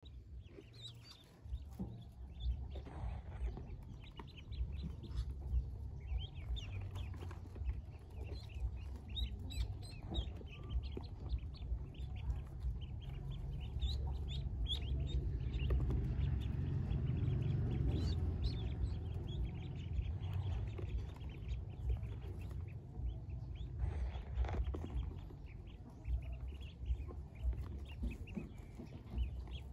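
Newly hatched Pekin ducklings peeping, many short high chirps overlapping throughout, over a low rumble that swells in the middle.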